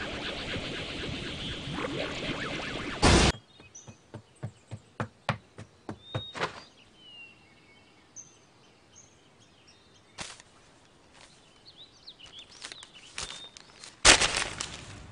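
Animated-series sound effects: a loud rush of noise that ends in a sharp hit about three seconds in, then a run of sharp taps and a few short bird chirps over quiet forest ambience. A single hit comes about ten seconds in, and a loud rush near the end.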